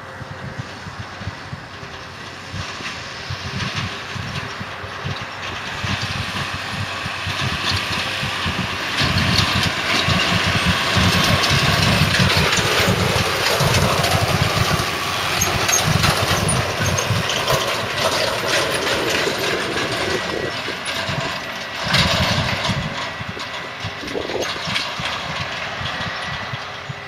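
Silage-harvesting machinery, tractors with silage trailers and a forage harvester, running and rattling. It grows louder toward the middle as it comes close, then eases off, with one loud clunk later on.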